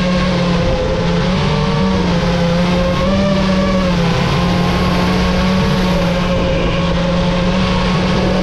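FPV quadcopter motors and propellers running in flight, a loud steady whine-hum whose pitch rises a little about three seconds in and drops back about a second later as the throttle changes.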